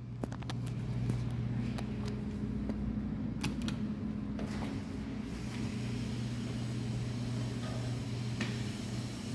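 Steady low machine hum, with a few light clicks and taps scattered through it.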